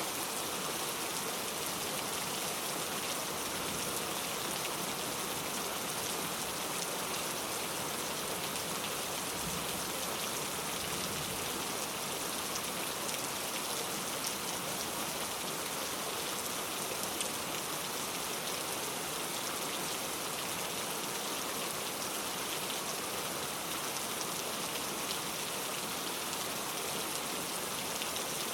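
Steady rain with no thunder, a dense even hiss of drops striking a surface, with fine individual drop ticks through it.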